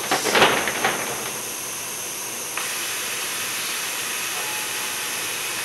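Air hissing through the climbing robot's hoses: several sharper bursts of hiss in the first second as the robot moves, then a steady hiss that steps up louder about two and a half seconds in.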